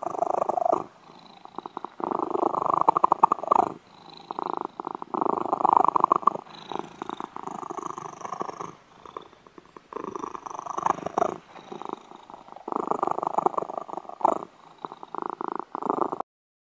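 A kitten purring in long, rough strokes of a second or two that swell and fade with each breath, with short quieter gaps between; it stops shortly before the end.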